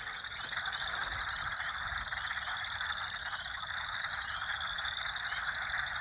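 A dense chorus of frogs calling from a pond: a steady mass of trilling with many short, high, rising notes repeated over it.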